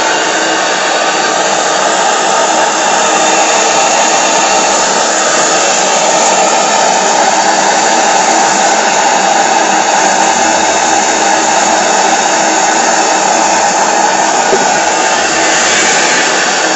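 PMR V-twin double-acting oscillating model steam engine running fast on steam from a Saito BT1L boiler: a loud, steady hissing whir with no clear beat.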